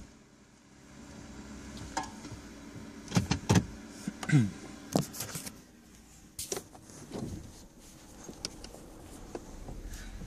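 Handling noise inside a car: scattered clicks, knocks and rustles, with a short falling squeak about four seconds in, over a faint low hum.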